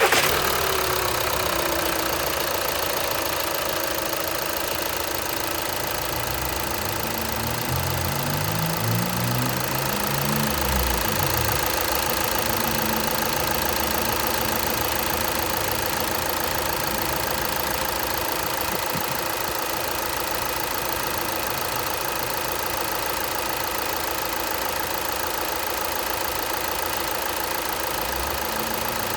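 2013 VW Beetle TDI's four-cylinder turbodiesel idling steadily, just after starting, run briefly to circulate freshly filled engine oil before the dipstick check.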